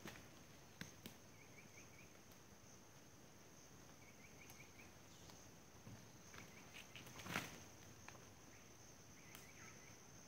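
Quiet rainforest ambience: a steady high insect drone, with short chirping trills a few times. A knock about seven seconds in, and a few fainter clicks near the start, come from a pole being lashed to a tree trunk.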